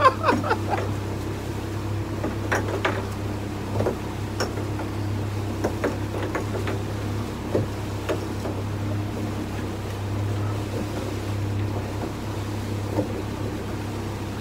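A thirty-odd-year-old outboard motor runs steadily on a small open boat, with a few short, light knocks scattered through.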